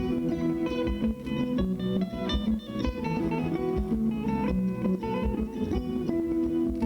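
Background music of quick plucked-string melody, guitar-like, over a regular low beat.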